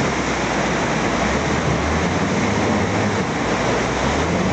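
Motorboat engine running steadily under way, with a constant rush of water around the hull.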